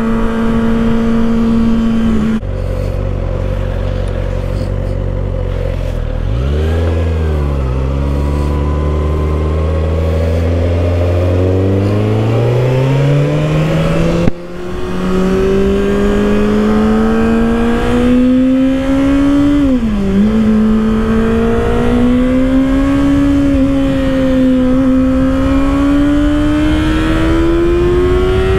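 2024 Kawasaki ZX-6R's inline-four engine under a rider, with wind noise. The engine note holds steady, drops to a low pitch about two seconds in, then climbs steadily as the bike speeds up, with a short break about halfway and a quick dip and recovery a few seconds later before it rises again.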